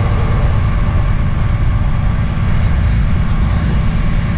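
Truck engine running steadily with a low, even rumble, as on a rollback wrecker working its bed and winch.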